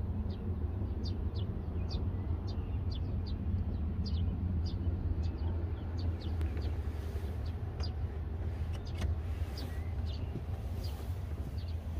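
Small birds chirping, short falling chirps repeated a couple of times a second, over a steady low rumble.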